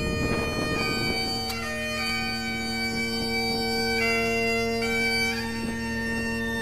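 Bagpipe music: steady drones under a melody that steps from note to note.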